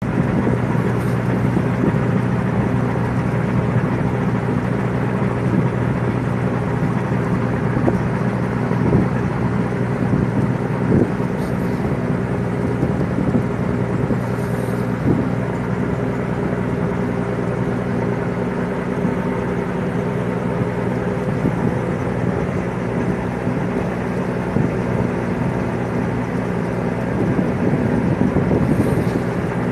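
A fishing vessel's engine running steadily with a low drone, over a continuous wash of noise from the hull moving through broken sea ice, with a few scattered knocks.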